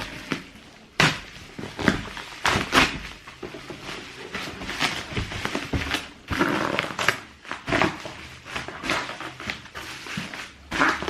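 Wrapping being pulled and torn off a double-wrapped trainer box, rustling and crinkling, with knocks and thumps as the box is handled.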